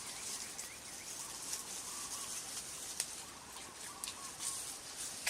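Faint chirping animal calls over a steady high hiss, with a few sharp clicks.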